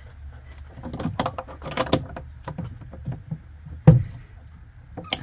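Hand tools working a battery terminal: a ratchet wrench and metal cable lugs clicking and clinking in a quick cluster, then a single sharp knock about four seconds in.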